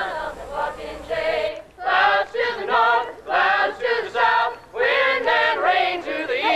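Several voices singing together unaccompanied, in held, wavering notes, with a short break about a second and a half in.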